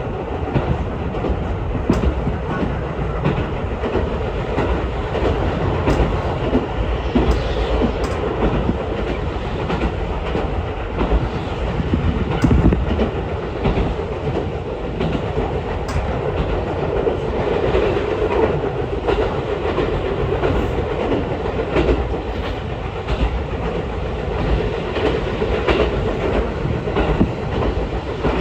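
Ichibata Electric Railway train running between stations, heard from inside the car: a steady rumble of wheels and running gear with irregular clicks as the wheels pass over rail joints.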